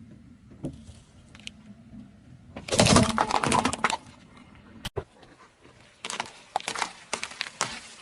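Crunchy objects crushed under a car's tyre, a dense run of cracking and crunching, loudest for about a second and a half; after a short break, a second, sparser run of sharp cracks.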